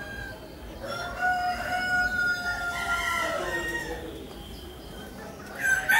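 A rooster crowing: one long, drawn-out crow starting about a second in and lasting about two and a half seconds. A louder call starts just before the end.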